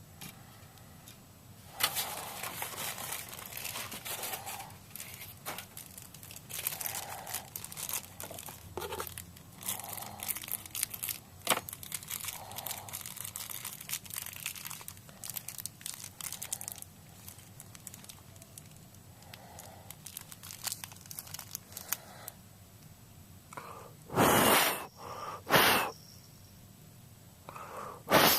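Plastic packaging being handled, crinkling and clicking, with a few short, loud tearing rips near the end.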